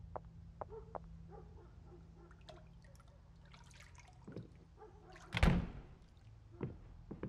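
Water gushing briefly at a kitchen sink about five seconds in, the loudest sound, after scattered light knocks and clinks as things are handled at the sink.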